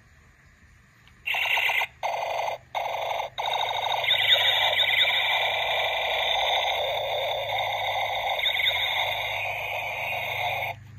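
Battery-powered Captain America action figure playing an electronic sound effect through its small speaker as its chest star lights up: three short electronic blasts, then a long warbling tone with repeated falling sweeps that cuts off near the end.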